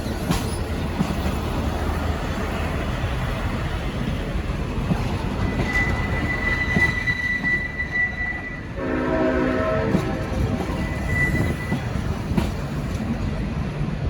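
A Leslie S5T five-chime air horn on a departing diesel locomotive sounds one short blast of about a second, roughly two-thirds of the way in, over the steady rumble of the train and strong wind on the microphone. A thin, high, steady squeal runs for a few seconds just before the horn and comes back briefly after it.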